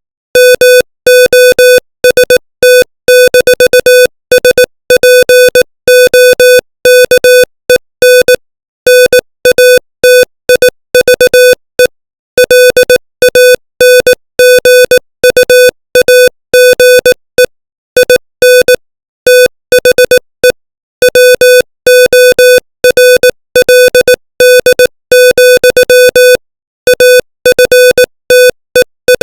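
Morse code at 18 words per minute: a single steady beep tone keyed on and off in short dits and longer dahs, with brief gaps between letters and longer pauses between words.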